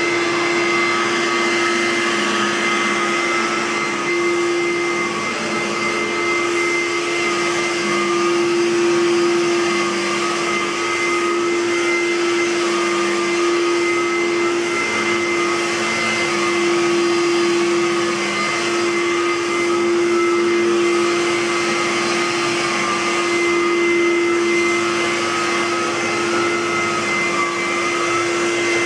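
Aerus Lux Guardian bagged upright vacuum cleaner running steadily: a constant motor hum and whine over the rush of air, with one higher tone wavering slightly in pitch.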